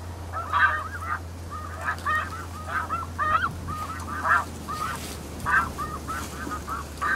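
A flock of snow geese calling in flight: many short, high, overlapping honks, several a second, over a low steady hum.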